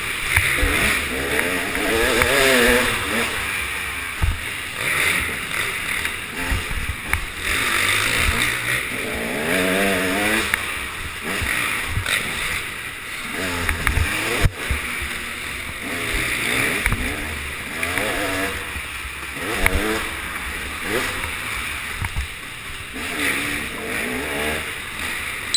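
Dirt bike engine revving up and falling off again and again as it is ridden over an indoor dirt track, with wind rush on a helmet-mounted microphone and an occasional sharp knock from the bumps, the sharpest a little past halfway.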